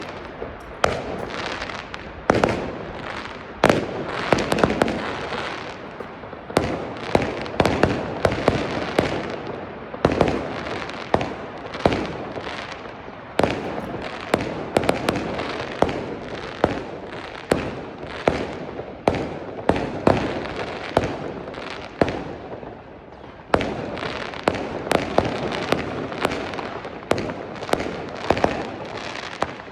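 Festival fireworks and firecrackers going off: a steady crackle with irregular sharp bangs, often several a second.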